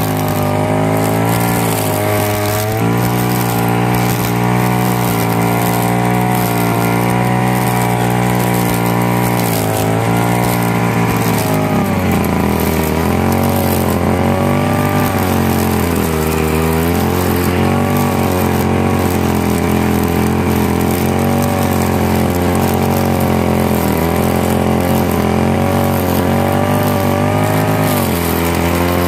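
Tanaka brush cutter's small petrol engine running steadily at high speed, its pitch wavering and dipping briefly a couple of times.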